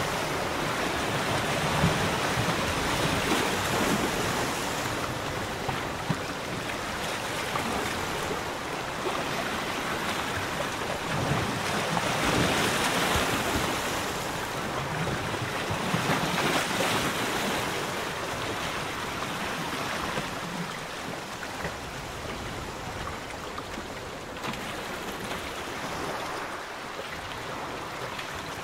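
Small waves lapping on the lagoon with wind on the microphone: a steady rushing noise that swells and eases every few seconds.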